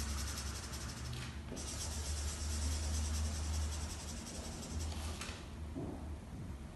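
Black felt-tip marker rubbing on paper while small dots are drawn, over a low steady hum.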